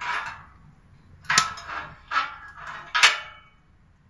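Several sharp metal clanks and scrapes with a short ring, the loudest about a second and a half in and another near three seconds. This is the secondary-air damper of a homemade rocket wood stove being worked open, the air that feeds the stove's pyrolysis afterburn.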